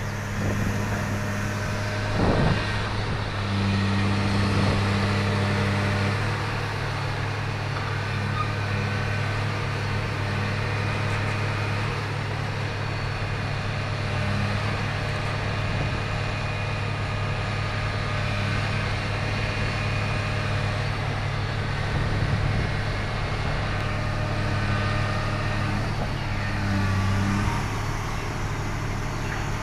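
A boat's diesel engine running with a steady low drone, swelling slightly a couple of times, with one brief thump about two seconds in.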